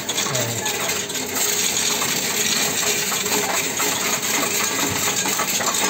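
Coinstar coin-counting machine taking in a trayful of copper euro cent coins: a dense, steady rattle and clinking of coins as it counts them, getting louder about a second and a half in.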